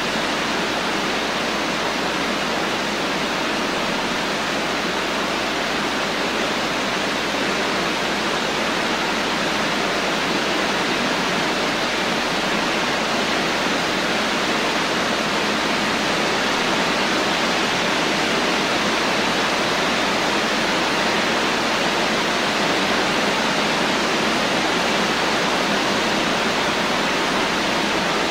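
Rain falling steadily in a dense, even hiss, with no separate drops, thunder or other events standing out.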